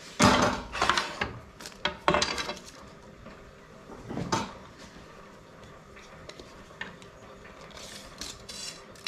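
Wooden workpieces and a dowel handled and set down on a cast-iron table-saw top: a clattering knock just after the start, two more knocks with rubbing scrapes at about two and four seconds, then lighter clicks.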